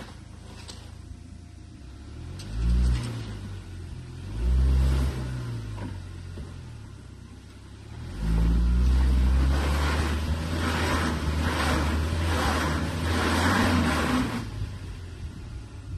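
BAIC BJ40 SUV engine revved in two short blips, then held at high revs for about six seconds as it strains on a steep mud slope, with tyres churning mud, before easing off near the end.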